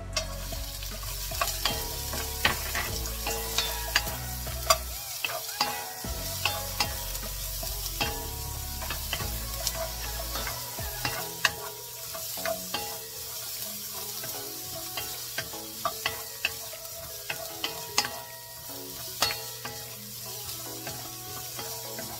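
Carrot sticks sizzling as they are stir-fried in oil in a stainless-steel wok, with a steady hiss of frying. A wooden spatula knocks and scrapes against the pan in frequent sharp clicks.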